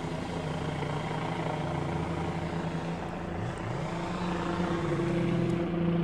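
An engine drones steadily, its pitch sliding down and up a few seconds in.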